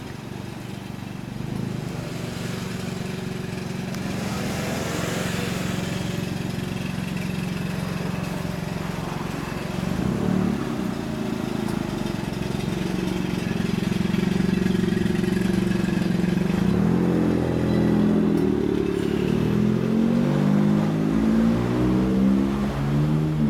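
Honda Fusion 250 scooter's single-cylinder four-stroke engine running through an aftermarket Real Speed Helix muffler. It idles steadily, then is revved repeatedly in the last several seconds, the exhaust note rising and falling with each throttle blip.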